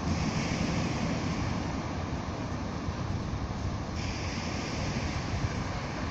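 Steady wind buffeting on a phone microphone and sea surf, over the low rumble of a distant freight train rolling by.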